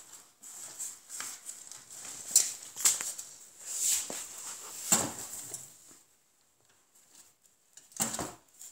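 Rustling of paper and plastic with irregular light knocks and clicks as small objects on a shelf are handled and pushed about, several sharper clicks among them, then a short quiet spell before another brief burst of handling.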